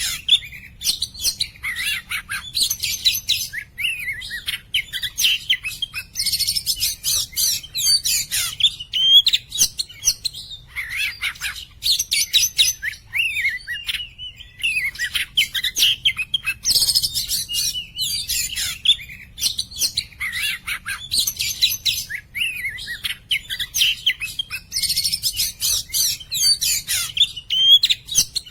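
Oriental magpie-robin (kacer poci) singing continuously: loud, clear whistled phrases mixed with rapid chattering trills and sliding notes, with only brief pauses between bursts.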